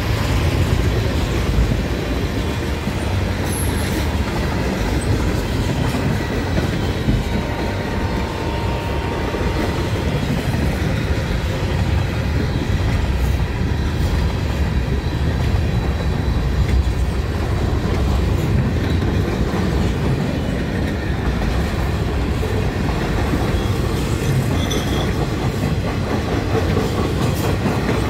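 Lake State Railway freight train cars rolling past a grade crossing: a steady low rumble with the clatter of wheels on the rails.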